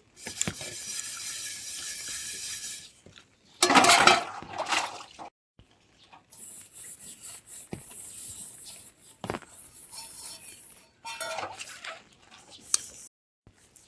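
Kitchen clatter of pots and utensils: clinks and scrapes in short stretches broken by abrupt silences, with a louder burst about four seconds in.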